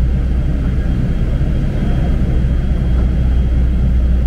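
Nova Bus LFS city bus heard from inside the passenger cabin: a steady, deep rumble of the engine and running gear, with no change in pitch or level.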